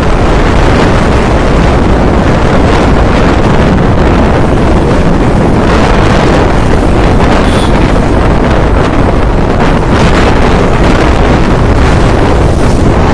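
Loud, steady rush of wind on the microphone of a motorcycle riding at speed, with road and engine noise underneath.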